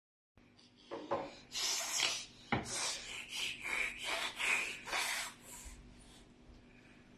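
A baby's breathy, panting laughter: a run of short bursts about two a second that dies away near the end.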